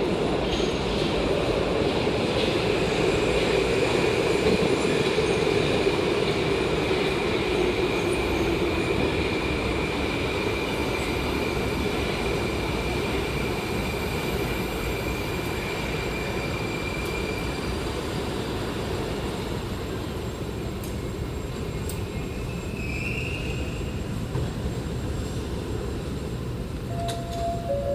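A new Moskva (81-765) metro train arriving at the platform and braking to a stop. Its motor whine falls in pitch as it slows, and a high wheel squeal lasts about two-thirds of the way through over steady rumbling. Near the end a few falling electronic tones begin.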